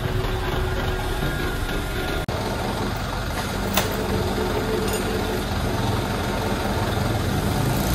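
Diesel engine of heavy lifting machinery idling steadily, with one sharp click a little before the middle.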